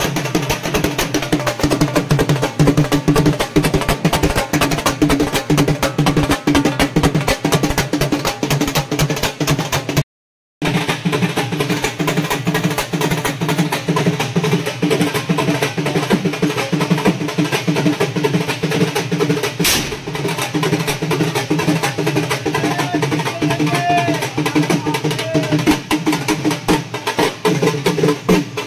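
Fast, continuous drumming with music, over a steady low drone. The sound cuts out completely for about half a second around ten seconds in.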